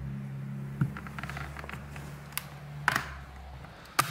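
Pry tool working between a Samsung Galaxy Tab A 10.1 (SM-T580)'s back cover and its frame, making a series of sharp clicks and snaps as the cover comes away. The loudest snaps come about three and four seconds in, over a low steady hum that stops near the end.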